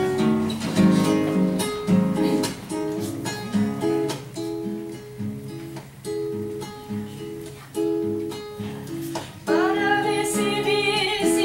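Acoustic guitar introduction, strummed and plucked chords in a steady rhythm. Near the end the choir comes in singing over the guitar.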